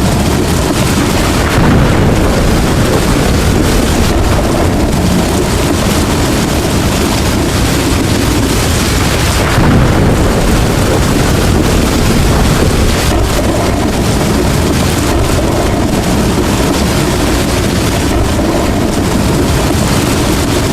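Heavy rainstorm: a steady, loud wash of rain and wind with deep rumbles of thunder, swelling twice, about a second and a half and nine and a half seconds in.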